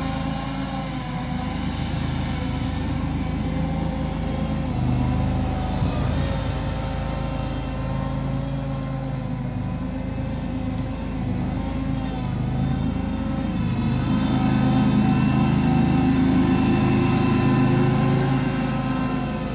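A home-made wheel loader's engine running steadily as the machine drives about, getting louder for a few seconds near the end.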